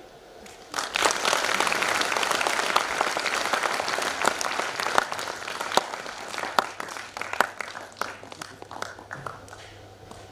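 Audience applauding in a hall, starting about a second in. It is loudest at first, then thins to scattered claps and fades out near the end.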